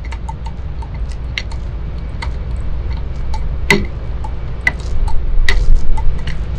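A small foam paint roller worked back and forth over a rudder's surface, its wire frame giving off irregular light ticks and short squeaks, the sharpest a little before four seconds in, over a steady low rumble.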